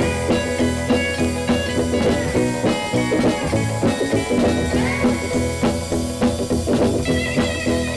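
Instrumental rock music: guitar carrying the tune over bass and a drum-kit beat.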